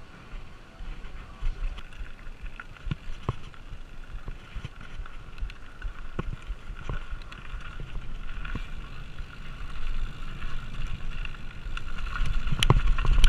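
Full-suspension mountain bike riding down a dirt trail: tyres running over dirt and gravel with wind on the microphone, and scattered sharp clicks and knocks from the bike rattling over bumps. It gets louder near the end as the bike picks up speed.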